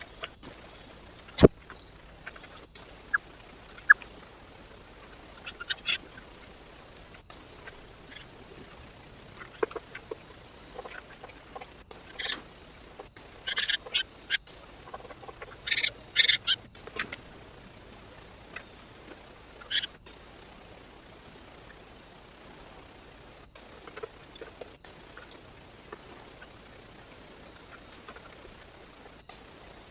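Birds at a feeder: scattered short high calls and sharp clicks, busiest in a cluster about halfway through, over a steady background hiss.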